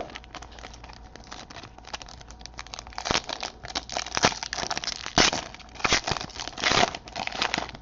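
A Panini Paramount basketball card pack's wrapper being torn open and crinkled in the hands: a run of irregular crackles and rips that grow louder and denser about halfway through.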